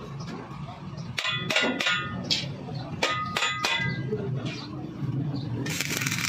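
Chipping hammer striking a freshly welded steel frame joint about ten times in two quick clusters, knocking off slag, each hit ringing metallically. Near the end a stick-welding arc strikes and crackles with a steady hiss.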